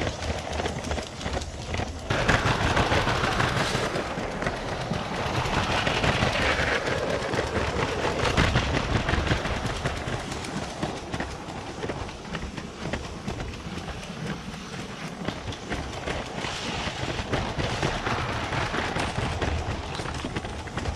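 Lego 12V toy train running on its track, heard close-up from on board: rapid clicking and rattling of the wheels over the rails with a running rumble. It grows louder about two seconds in and eases off after about nine seconds.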